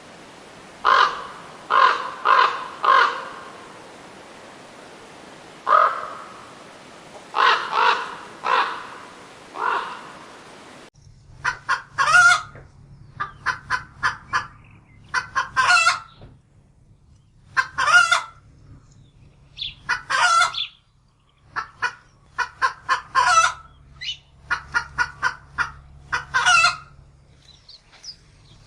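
A crow cawing in groups of three or four harsh calls. About eleven seconds in, the recording changes to a chicken clucking in quick runs of short calls.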